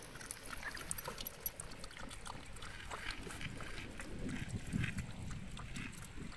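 Shiba Inu lapping water from a thin stream running from a drinking-fountain tap: many quick wet tongue splashes, with the stream trickling.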